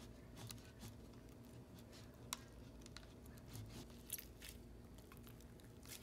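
Faint sticky clicks and squishes of freshly made glue-and-borax slime being stirred in a plastic cup with a wooden craft stick and then worked by hand, with two sharper clicks about two and four seconds in.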